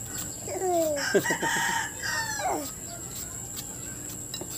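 A rooster crowing once: a single call of about two seconds that falls in pitch at the end.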